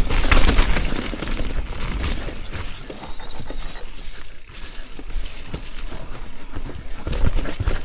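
Mountain bike riding down a rough dirt forest trail: tyres rolling over dirt and roots, with the bike rattling and knocking irregularly over bumps.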